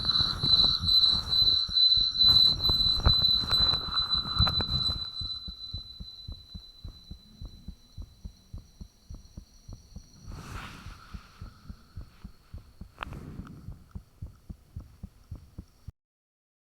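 Human heartbeat recorded up close: loud, regular thumps over a steady high-pitched whine that fades out, then softer, quicker-sounding beats with a brief rushing swell and a sharp click partway through. The sound cuts off suddenly near the end.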